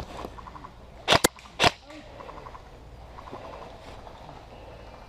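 Airsoft replica firing three sharp shots about a second in, the first two close together and the third half a second later, with faint rapid ticking between them.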